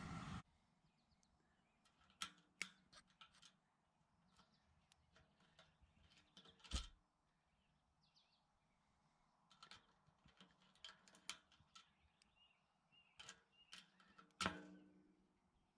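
Scattered small metallic clicks and taps as needle-nose pliers work the cotter ring on a sailboat mast's stay fitting, with near silence between them. The two loudest clicks come about seven seconds in and near the end.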